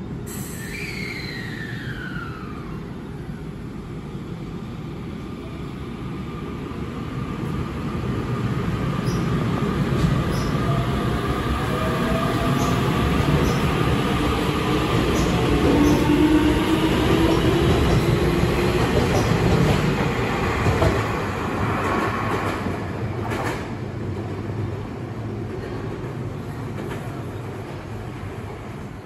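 Keio Inokashira Line 1000-series electric train pulling out of the station and passing close by: the motor whine rises in pitch as it gathers speed over a heavy rumble of wheels on rail, loudest about halfway through, then fades as the last cars go by. A single sharp knock comes a little after the loudest part.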